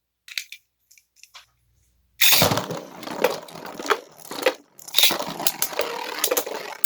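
A few faint clicks, then about two seconds in, two Beyblade spinning tops are launched into a plastic stadium and spin and collide, with repeated sharp clacks and a rattling hiss of the tops scraping the stadium floor.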